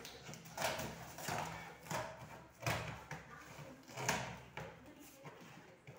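Packing tape on a cardboard shipping box being cut open by hand, a run of short rasping cuts about every 0.7 seconds.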